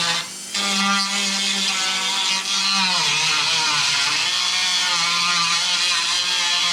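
Dremel rotary tool running at high speed with a small bit, grinding to enlarge a hole in the car's metal panel. Its whine wavers in pitch as it is pressed on, with a short drop in level about half a second in.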